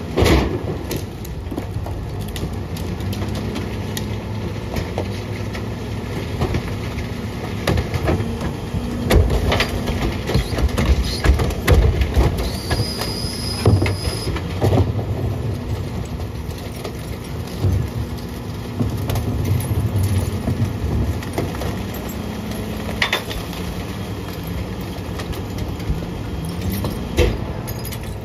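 Peterbilt 520 Heil rear-loader garbage truck running its packing cycle: the engine rises and falls in pitch as it drives the hydraulics, while the packer blade sweeps and compacts a heavy load. Loud clanks and crunching thumps come about a third of the way in as the trash is crushed and a cart is emptied into the hopper, along with a brief high squeal.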